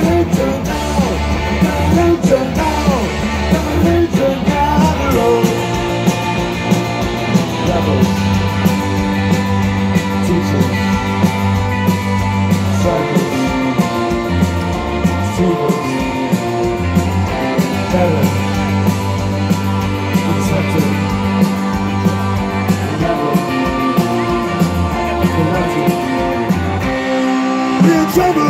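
Live rock band playing loudly: electric guitars, electric bass and drums with a steady beat, and a voice singing in places.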